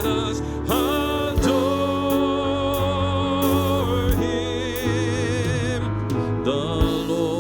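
Church worship band playing a Christmas worship song: long held melody notes with vibrato over sustained chords, with a few drum hits.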